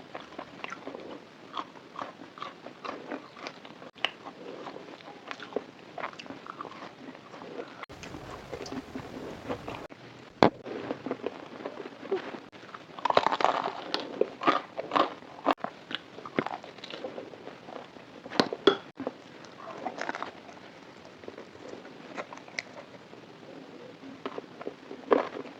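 Close-miked biting and chewing of crunchy fried food, a string of short crisp crunches with louder bites about halfway through.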